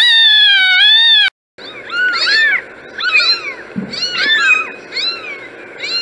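An orange tabby kitten gives one long, loud meow that cuts off after about a second. Then several kittens mew over one another in clusters of short calls, about once a second.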